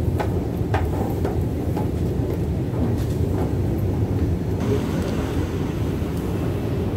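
Steady low rumble of the Central–Mid-Levels outdoor escalator running, with a few light clicks in the first couple of seconds.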